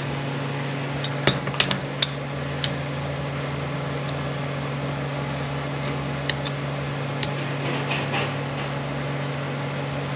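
Metal clicks and clinks of a T5 manual transmission's gear and synchronizer being handled and fitted. There is a quick cluster of sharp clicks a little over a second in, then a few scattered faint taps, over a steady low hum.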